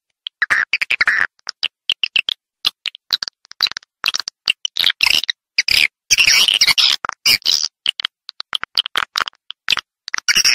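Recorded swiftlet calls of the kind used as a swiftlet-house lure: rapid twittering chirps and dry clicking in irregular bursts, with dead-silent gaps between them.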